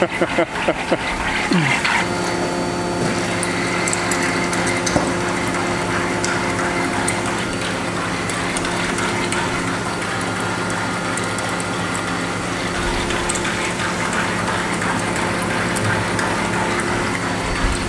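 Sinker EDM machine running a cut with a copper electrode into steel under dielectric oil: a steady hum with faint crackling ticks from the spark discharges. The oil over the cut is too shallow, so the sparks flare into fire at the oil surface.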